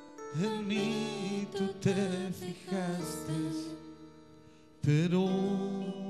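A slow worship song on an electronic keyboard, with voices singing along in long held notes.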